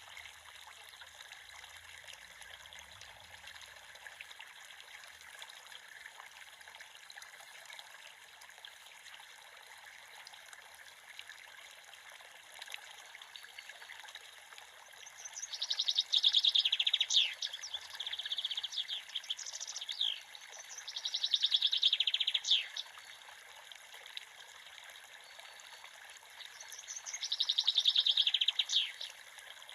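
Creek water running steadily, with a songbird singing over it in the second half: three loud phrases of rapid trills with quick downward-sweeping notes, the loudest sounds here.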